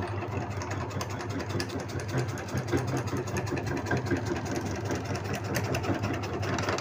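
Motor-driven supari (areca nut) cutting machine running: a steady hum from its motor and gearing, with frequent sharp clicks and cracks from the rack-fed cutting mechanism.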